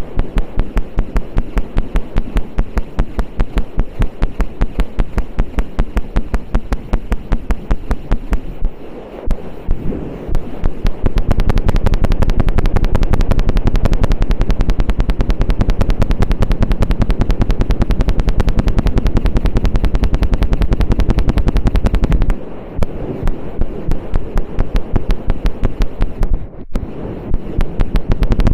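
ASMR ear-scraping stick (ear pick) rubbed rapidly against a microphone's ear, making fast rhythmic scratching strokes. The strokes come several a second at first, speed up into a near-continuous rapid run through the middle, then slow back to separate strokes near the end.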